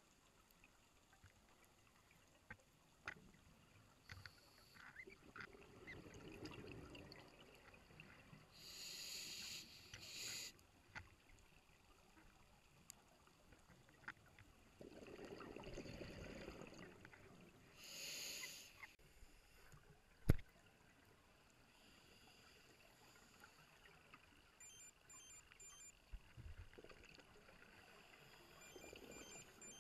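Faint scuba breathing through a regulator underwater: short hissing inhalations alternating with lower bursts of exhaled bubbles, a few breaths in all. There is one sharp click about twenty seconds in.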